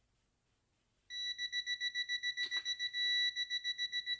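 Handheld electronic stud finder beeping rapidly, about seven high beeps a second, with a brief unbroken tone about three seconds in. The beeping is its signal that it is detecting a stud behind the drywall.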